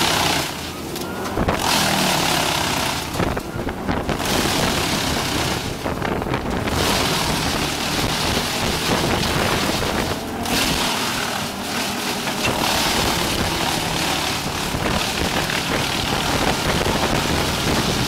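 Crane-fed, truck-mounted wood chipper running under load as it chips brush and branches. A loud, uneven noise that dips briefly a few times.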